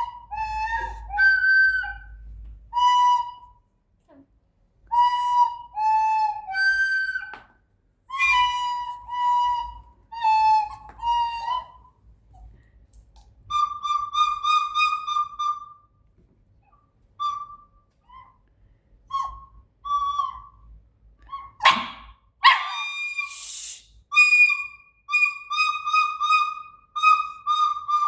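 A series of short whistle-like notes, most around one pitch, coming in groups with pauses between them. About three-quarters of the way through there is a brief harsh noise.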